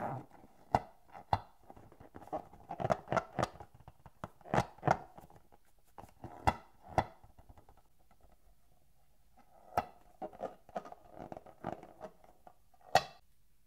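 Hands squeezing and rubbing a long latex balloon: irregular short rubbery squeaks and sharp taps. There is a pause of about two seconds in the middle, and a loud snap near the end.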